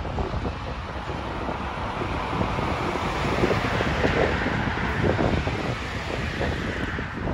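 Wind buffeting the microphone over the rumble of diesel locomotives hauling a freight train, a little louder in the middle.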